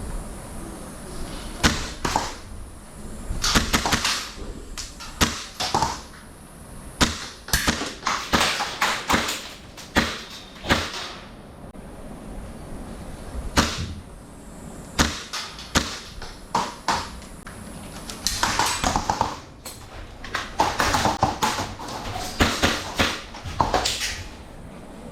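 Airsoft gunfire in close quarters: irregular sharp cracks and knocks, some single and some in quick strings, with short lulls between.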